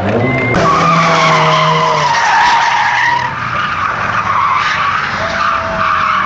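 Drift car sliding with its tyres screeching loudly over a revving engine. The engine note rises and falls in the first couple of seconds, then the tyre squeal dominates.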